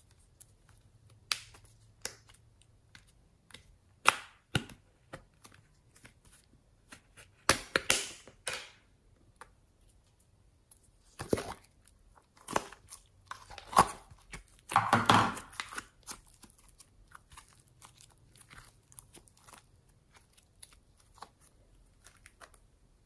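A small plastic slime tub and red slime being handled by hand: scattered sharp plastic clicks and crackles, and sticky squelches as the slime is squeezed out and pressed into a dish of glossy slime. The loudest, longest squelch comes about 15 seconds in.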